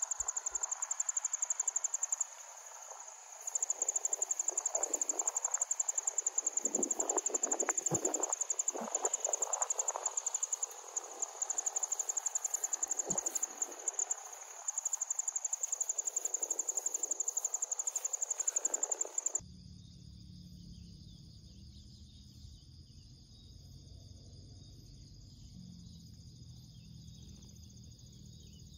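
High, steady trilling of insects, with the brushing and swishing of someone walking through tall grass. About two-thirds of the way through, both cut off abruptly and a quieter, lower background takes over.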